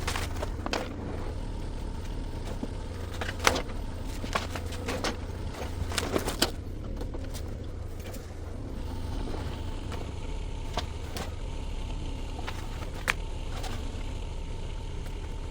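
Shantui STE35SR mini excavator's diesel engine running steadily, with scattered sharp knocks and cracks from demolition work, several bunched together between about three and seven seconds in.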